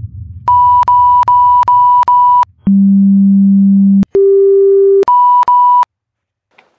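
Edited-in electronic censor bleeps, as over swearing: a run of five short high beeps, then a long low tone, a shorter middle tone, and three more short high beeps, which cut off suddenly.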